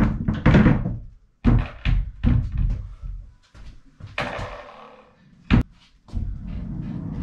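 Masonite barn door and its steel roller hangers knocking and clunking against the metal track as the door is hung and settled, with one sharp bang about five and a half seconds in. Near the end, a steady low rumble as the door rolls along the rail.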